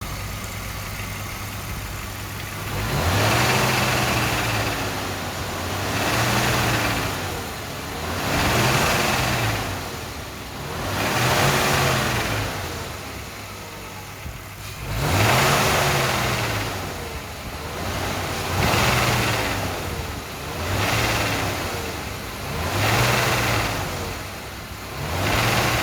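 BMW M50 straight-six engine idling, then blipped about nine times, each rev rising and falling back to idle. The engine is run to show the knocking of its VANOS variable valve timing unit.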